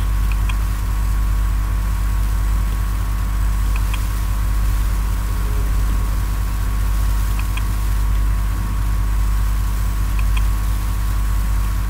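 Steady low hum with evenly spaced overtones, unchanging throughout. Faint paired mouse clicks come every three to four seconds.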